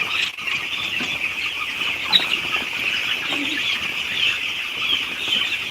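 A shed full of young chickens cheeping continuously, a dense high-pitched chatter of many birds at once, with a few lower clucks now and then.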